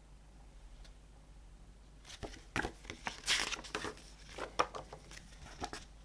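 Hands handling a CD and its paper and plastic packaging: a run of crinkly rustles and light clicks that starts about two seconds in.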